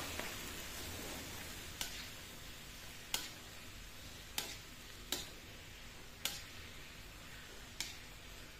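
Spatula clinking and scraping against a wok while vegetables are stir-fried, about seven irregular knocks, over a soft sizzle that fades in the first couple of seconds.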